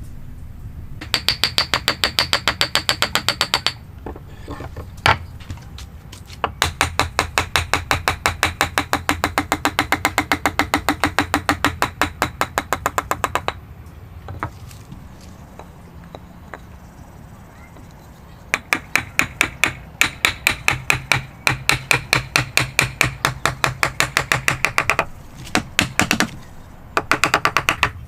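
Quick, even hammer taps, about nine a second, that come in several runs of a few seconds each, each tap with a short metallic ring. A low steady hum sits underneath.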